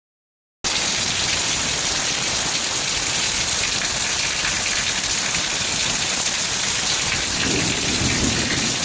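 Heavy rain pouring down, a dense steady hiss of a downpour, starting about half a second in. A short low rumble rises briefly under it near the end.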